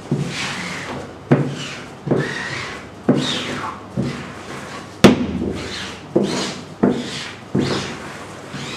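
Rubber squeegee worked back and forth across a screen-printing mesh in a wooden frame, pushing ink through onto fabric. There are about nine strokes, roughly one a second. Each begins with a sharp knock and trails off in a scraping swish, and the loudest knock comes about five seconds in.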